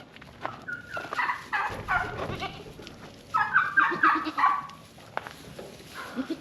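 Hen turkey calling in two runs of short, quickly repeated notes, the first about a second in and the second about three and a half seconds in.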